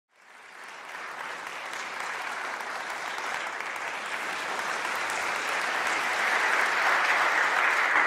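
Audience applauding, fading in at the start and growing steadily louder.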